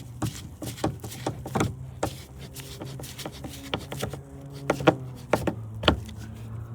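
Irregular clicks and taps of a screwdriver driving a screw into a car door's trim panel, over a steady low hum.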